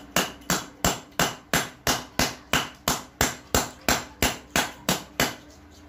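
Iron rod hammering a charger against a concrete floor: about sixteen sharp blows at roughly three a second, stopping shortly before the end.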